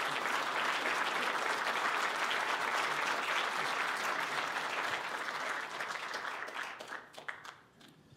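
Audience applauding, dying away over the last three seconds into a few scattered claps.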